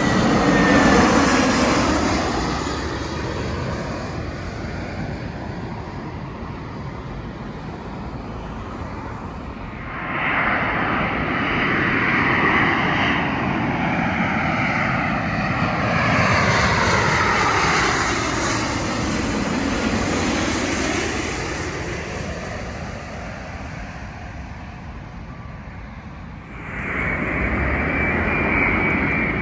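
Jet airliners on final approach passing low overhead, in three separate passes: an Airbus A320-family twinjet, a Boeing 777-200ER and a Boeing 787-8. Each pass is a jet engine sound that swells and fades, with a high whine that falls in pitch as the first one goes over. A steady high whine comes in near the end as the 787 approaches.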